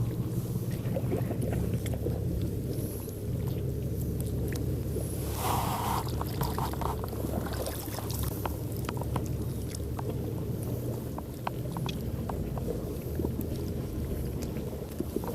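A motor runs steadily with a low, even hum. Scattered clicks and knocks of handling sit over it, with a short hiss about five seconds in.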